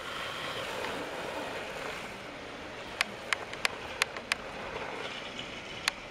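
Battery-powered Trackmaster toy train running: a steady whir with sharp clicks, five in quick succession about halfway through and one more near the end.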